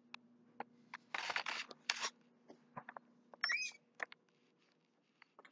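Handling noise from a handheld camera being picked up and moved: scattered clicks, knocks and rustling, loudest about a second in, with a short squeak about three and a half seconds in.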